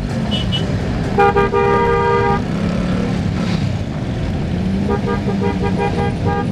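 A vehicle horn honking: one long blast of about a second, then a quick run of short toots near the end, over steady street noise.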